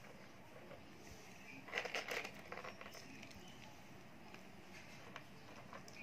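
Faint clicks and light rustling of slate-pencil sticks being handled and set down on a notebook cover, with a brief cluster of sharp clicks about two seconds in and a few scattered single clicks after.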